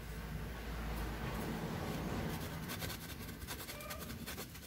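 Cheese being grated on a handheld metal grater over a pan: quick, repeated rasping strokes, several a second, starting a little past halfway. Before that there is a low rumble.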